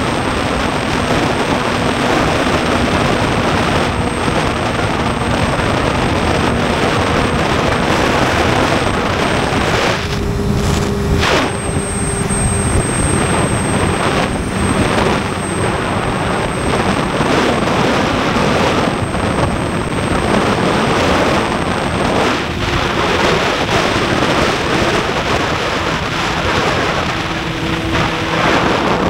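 Wind rushing over an action camera's microphone while a Honda CBR600F's inline-four engine runs at riding speed underneath. The engine note shifts in pitch a few times, and the wind noise eases briefly about ten seconds in.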